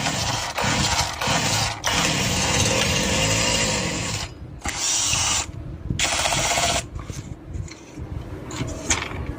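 Small two-stroke chainsaw engine of a Chinese 52cc saw running unevenly. It drops out briefly about four and five and a half seconds in and runs weaker and more ragged near the end.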